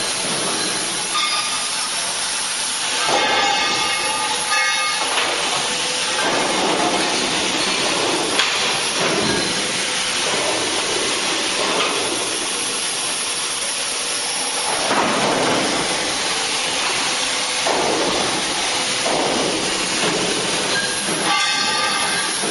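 Steady, loud hissing machine noise, with brief clusters of squealing tones about three to five seconds in and again near the end.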